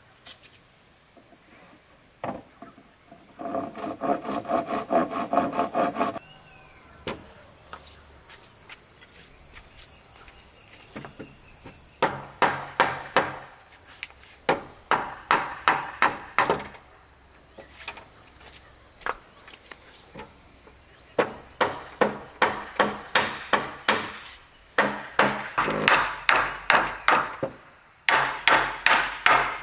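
Hammer blows on the wooden bed frame, coming in runs of quick strikes at about three a second with pauses between, as the frame's joints are knocked together. Insects buzz steadily throughout.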